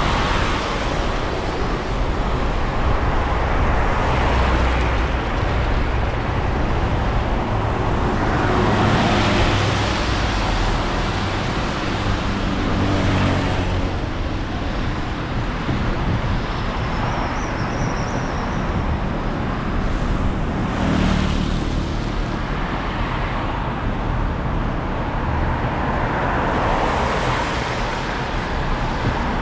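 Street traffic on a rain-wet road: a steady noise of car tyres and engines, swelling and fading as several cars pass one after another.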